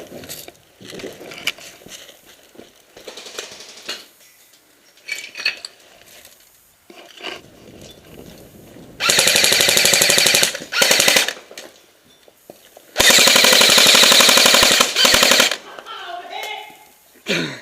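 Airsoft gun firing two long full-auto bursts of about two seconds each, a few seconds apart.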